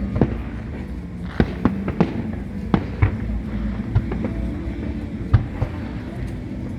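Aerial fireworks going off: sharp, irregular bangs and cracks, roughly one or two a second, some in quick pairs, over a steady low background hum.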